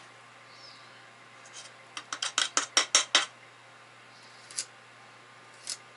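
A table knife tapping and scraping against metal hand-mixer beaters to knock off cookie dough: a quick run of about eight sharp clicks about two seconds in, then two single clicks later.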